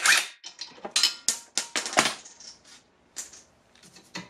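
Metal hand tools clinking and clattering against metal: a quick run of sharp clinks, one with a brief ring, thickest in the first two seconds, then a few lighter ticks.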